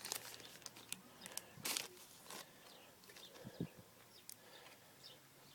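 Faint, scattered clicks and soft rustles of packaging being handled, with a few faint bird chirps in the background.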